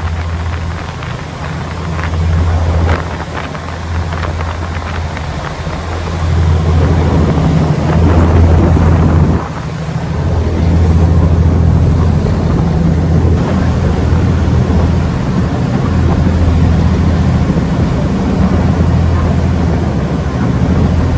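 Ferry's engine droning steadily, with wind noise on the microphone; it grows louder about six seconds in.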